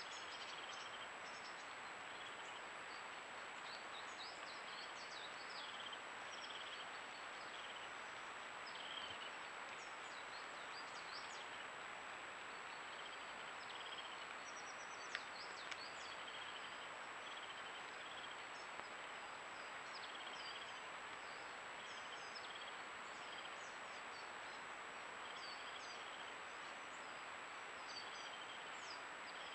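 Woodland ambience: a steady hiss with small birds calling throughout, one giving a short trill repeated every second or two, over a thin, steady, high-pitched tone.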